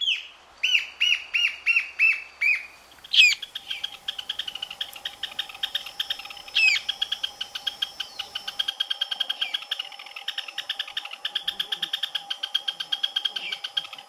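Great xenops singing: a series of about six loud, sharp notes falling slightly in pitch. Then a long, fast run of repeated chip notes, about seven a second, goes on to the end, with two louder slurred notes among them, over a faint steady tone.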